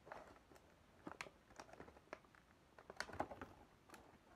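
Faint, irregular light clicks and taps of hands handling a cardboard toy box and its packaging.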